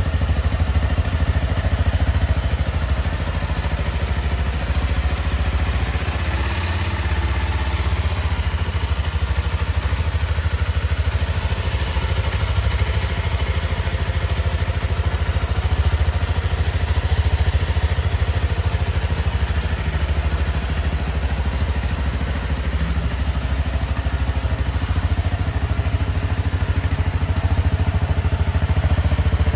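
Honda CRF250L's liquid-cooled single-cylinder four-stroke engine idling steadily.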